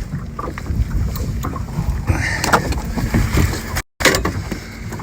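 Scattered knocks and rustles of handling on a small boat over a steady low rumble, as a caught fish is worked out of a landing net.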